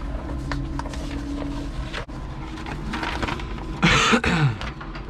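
Low steady hum of an electric forklift in its cab, with scattered small clicks. A person coughs about four seconds in, the loudest sound here.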